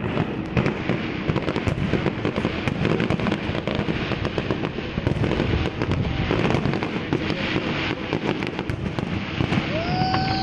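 Fireworks display going off: a dense, continuous run of bangs and crackles from shells bursting overhead, with a high whistle falling in pitch starting near the end.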